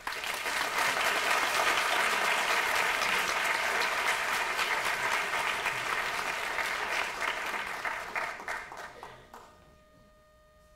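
Audience applauding, a dense patter of many hands clapping that starts at once and dies away about nine seconds in.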